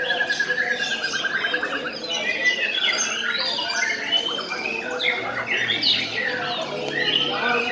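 Many caged songbirds at a bird-singing contest chirping and singing at once, their calls overlapping, with a rapid trill in the first second and a half.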